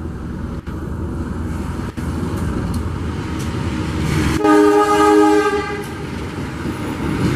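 Diesel locomotive running as it approaches, hauling a passenger train. About four and a half seconds in, its horn sounds one blast of several tones at once, lasting about a second and a half.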